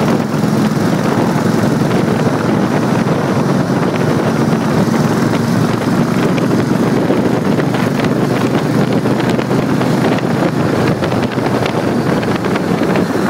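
Motorcycle engines running steadily at road speed under a heavy rush of wind on the microphone, with a low engine hum clearest in the first few seconds.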